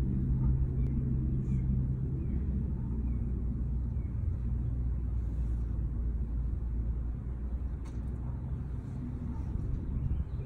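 Steady low mechanical rumble with a hum, like a motor running, easing slightly about seven seconds in.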